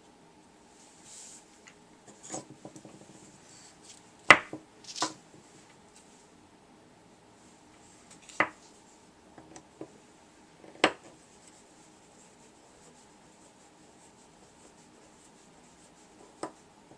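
Small parts of a Mikuni fuel pump being handled during disassembly and cleaning: several sharp clicks and knocks a few seconds apart, the loudest about four seconds in and near eleven seconds, with light rubbing between them.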